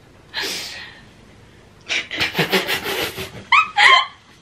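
Hearty laughter: a breathy burst, then a run of quick panting laughs, and two short high-pitched squealing laughs near the end.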